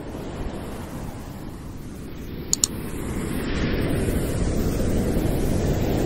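Ocean surf rushing steadily and growing louder, with a quick double mouse click about two and a half seconds in.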